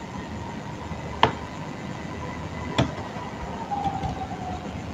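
Two sharp computer mouse clicks, about a second and a half apart, over a faint steady hiss.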